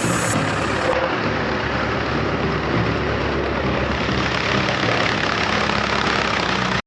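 An engine idling steadily with a low drone, cutting off abruptly near the end.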